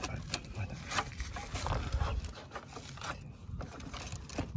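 Scattered small clicks and knocks of hands working loose metal battery hold-down fittings on a tractor, over low rumbling handling noise.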